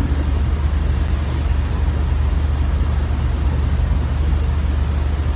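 Steady low hum with an even hiss over it: the background noise of a lecture hall, unchanging throughout.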